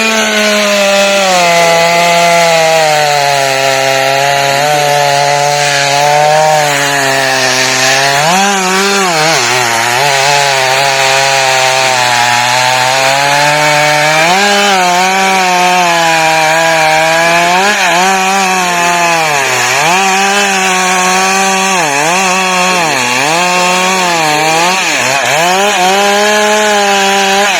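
Chainsaw running at high speed while cutting into a rubber tree. Its engine note keeps wavering, and from about halfway on it dips again and again as the chain bogs down in the wood and then picks up.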